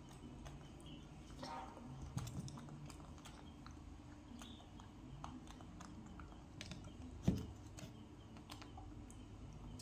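A hand rummaging in a plastic jar of candied gooseberries: many small scattered clicks and rustles, with faint chewing. There is a brief squeak about a second and a half in, and a single louder knock about seven seconds in.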